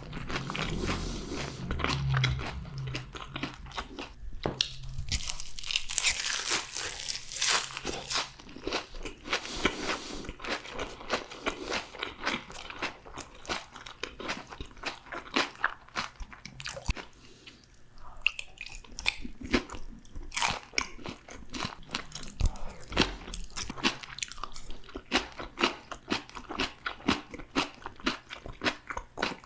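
Close-miked crunching and chewing of crispy fried food, with many sharp crunches in quick succession as the crisp coating breaks between the teeth.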